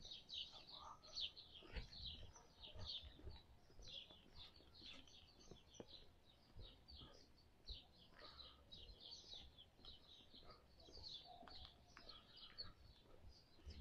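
Many small birds chirping faintly and without a break, short quick chirps overlapping one another, with a few soft low bumps underneath.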